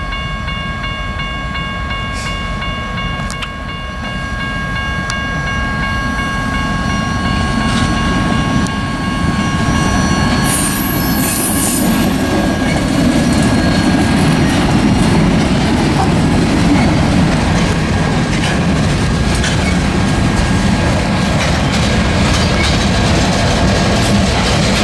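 EMD GP38-2 diesel-electric locomotive's 16-cylinder two-stroke engine running as it draws nearer, the rumble growing louder through the first half, with light wheel clicks on the rails. A steady high tone of several pitches fades out about halfway.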